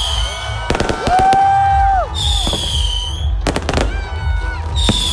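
Fireworks going off in a run of sharp bangs, with music playing over them.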